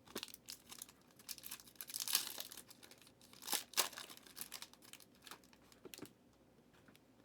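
Trading card pack wrappers crinkling and tearing with light clicks of card handling, dying down about six seconds in.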